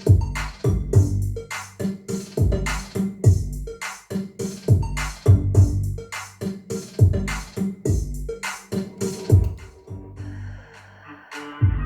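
Electronic dance music with a heavy drum-machine kick beat, played through an Accuphase E-305 amplifier on Monitor Audio MR6 three-way speakers. About ten seconds in, the beat stops briefly under a held synth chord, then comes back just before the end.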